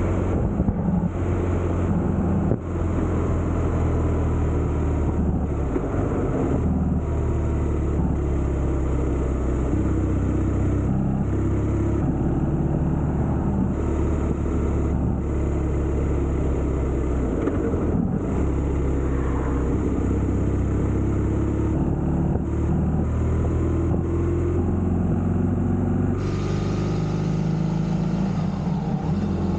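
Motorcycle engine running at road speed, its pitch shifting in steps as the speed changes, with wind noise; about 26 seconds in the engine note drops and the sound changes.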